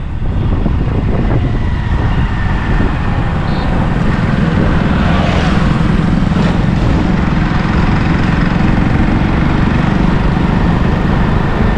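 Steady vehicle noise, a continuous low rumble.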